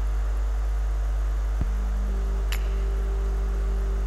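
Steady low electrical mains hum with a few fainter steady tones above it, and a couple of small clicks partway through.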